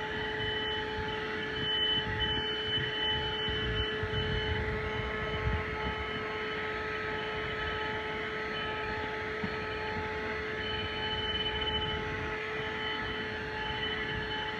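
Handheld 12V car vacuum cleaner running steadily, a constant motor whine over the rush of air.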